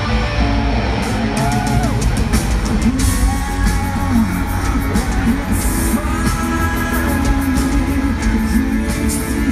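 Live rock band playing loud, with electric guitar, drum kit and singing, heard from the audience in an arena.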